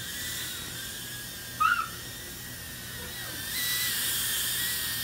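A small mini quadcopter drone's propellers whining as it hovers, the pitch wavering and rising and the whine growing louder about three and a half seconds in. A short, loud, high chirp about a second and a half in.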